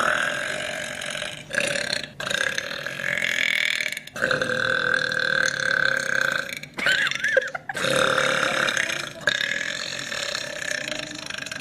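A woman burping: a run of about seven long, drawn-out belches in quick succession with brief breaks between them, one wavering in pitch about seven seconds in.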